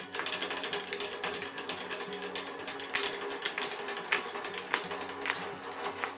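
Hand-cranked drill turning a twist bit into a hardwood block: a fast, uneven run of clicks from the gearing and the bit cutting, going on without a break.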